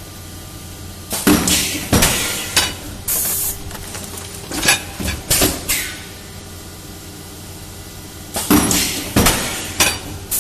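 Plastic bento-box forming machine running through its cycle: a low steady hum under clusters of sharp clacks and knocks, with a short hiss about three seconds in. The strokes stop for about two and a half seconds in the middle, then start again.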